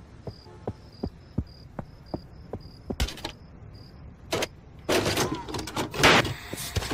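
A VHS cassette pushed into a VCR: a knock, then the whir and clunks of the loading mechanism drawing the tape in. Before it, a cricket chirps faintly at an even pace amid soft ticks.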